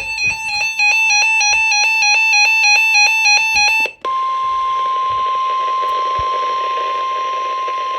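Emergency weather alert tones. For about four seconds, rapidly alternating electronic beeps step between pitches. They cut to a steady single-pitched tone at about 1050 Hz, the NOAA Weather Radio warning alarm tone that announces a warning message is about to follow.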